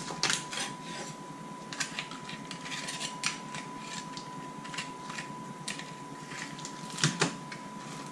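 Heavy kitchen knife splitting a lobster lengthwise on a wooden chopping board: irregular crunching and cracking clicks as the blade forces through the shell, with a louder knock about seven seconds in.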